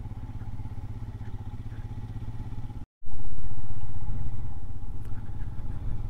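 Motorcycle engine running steadily under way. The sound cuts out completely for a moment about halfway through and comes back louder.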